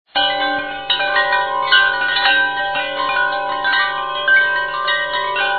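Wind-chime music: many overlapping ringing metallic tones over a low steady drone, starting suddenly just after the beginning.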